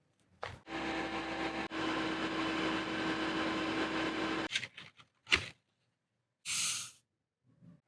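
A small electric motor runs steadily with a constant hum for about four seconds, then cuts off, followed by a few sharp clicks and knocks and a short hiss.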